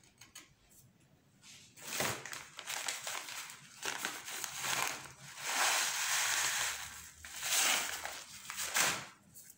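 Small plastic bag of decorative pebbles crinkling and rustling as it is handled, in several spells starting about two seconds in and stopping just before the end.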